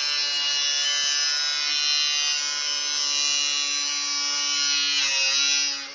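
Angle grinder cutting a slot in PVC stormwater pipe: a steady high motor whine with a hissing cut. The motor dips in pitch and stops near the end.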